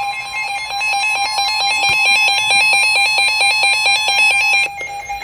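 Emergency Alert System attention signal: a loud, steady electronic alert tone over a radio broadcast, announcing an emergency weather warning. It cuts off near the end.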